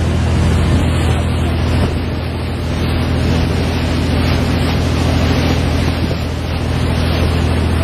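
Condor Express whale-watching boat running at speed: a steady low engine drone under the loud rush of churning wake water along the hull, with wind buffeting the microphone.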